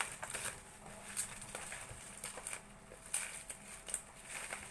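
Plastic wrapping crinkling and crackling as it is pulled off a product, with scattered small clicks.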